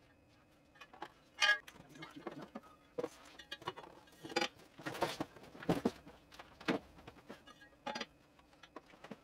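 Starlink satellite dish and its cardboard and foam packaging being handled: scattered light knocks, clicks and rustles as the dish is lifted from the box and set onto its stand. The sharpest knock, about a second and a half in, rings briefly.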